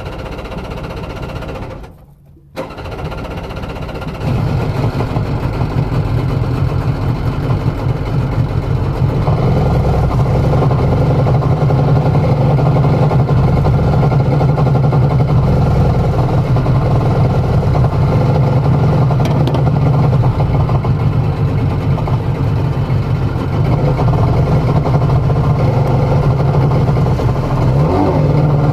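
Jet boat's engine running under way. It drops out briefly about two seconds in, comes back louder about four seconds in, and then runs steadily.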